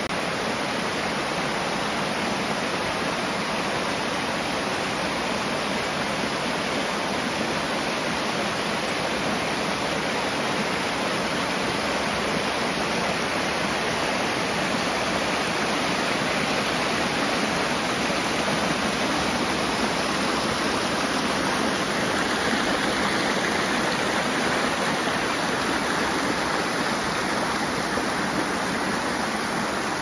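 Rain-swollen mountain stream rushing and cascading over rocks below a small waterfall, a steady, even wash of water running high after days of rain.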